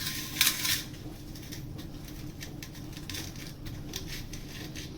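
Fresh chhena (homemade paneer curd) being kneaded and pressed with the palm: a short rubbing scrape in the first second, then a steady run of small soft clicks and squishes as the hand works the dough.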